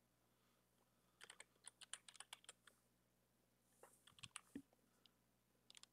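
Faint computer keyboard typing: a quick run of keystrokes starting about a second in, then a few more keystrokes near the end.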